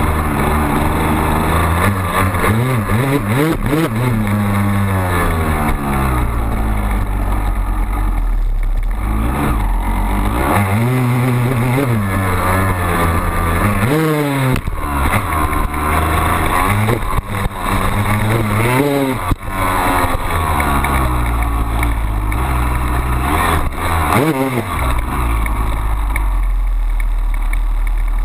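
2002 Honda CR250R's single-cylinder two-stroke engine under riding load, revving up and dropping back again and again as the dirt bike is ridden down a dirt trail.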